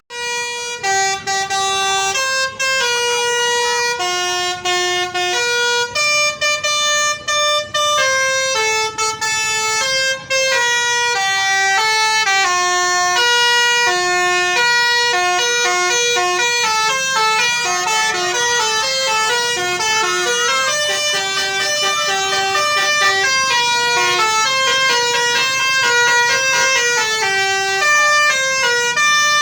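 Bus telolet horn playing a fast melody of short stepped notes, one after another without a pause.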